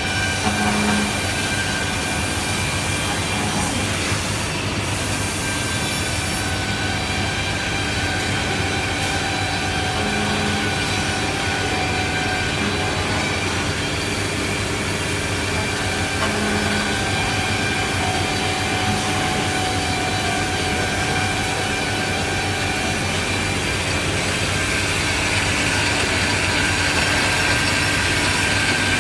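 Holztek CNC hinge and lock-mortise boring machine running as it machines the edge of a wooden door: a steady whine of its spindle motors over an even machining noise.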